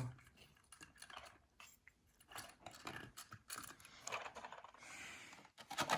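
Faint handling noises: light plastic clicks, taps and rustles as a model locomotive and its packaging are handled.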